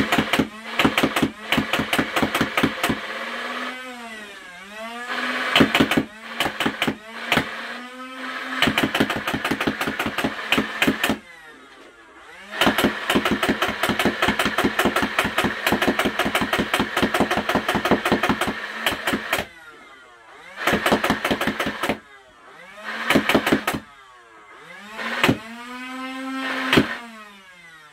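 Nerf Rival Nemesis blaster firing foam balls fully automatic in rapid bursts of shots, several bursts with short pauses between them, the longest lasting about seven seconds. Between bursts its battery-powered flywheel motors can be heard revving up and spinning down with a whine that rises and falls.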